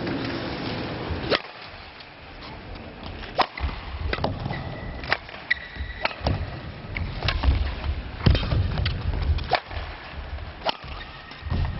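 Table tennis rally: the ball clicking sharply off the bats and table about a dozen times at an uneven pace, with low thumps underneath and a brief high squeak near the middle.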